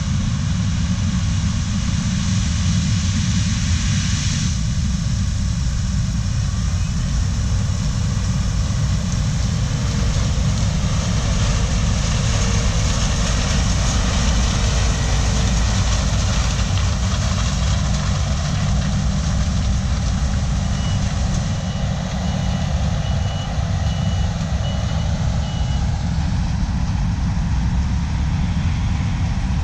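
Heavy diesel harvest machinery running steadily, with a deep rumble and a wide hiss. About two-thirds of the way through, a backup alarm beeps in a run of about ten beeps, roughly two a second.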